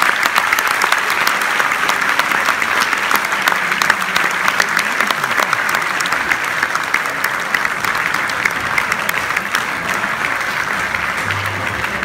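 Theatre audience applauding at a curtain call: the steady clatter of many hands clapping, easing off slightly toward the end.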